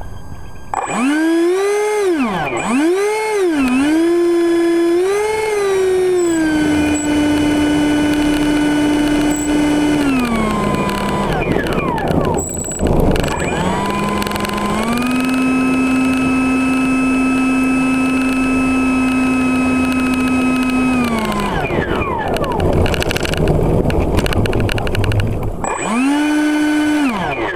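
Electric ducted-fan motor of a Habu RC jet, heard from a camera mounted on the plane as it taxis: a loud whine that rises and falls several times as the throttle is blipped, then holds steady twice with a short stop between, winds down, and comes back in one short burst near the end.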